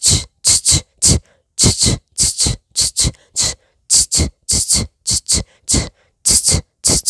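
A person imitating a shaker with the mouth: a quick, rhythmic run of short hissy 'chh-chk' syllables, about three a second and often in pairs.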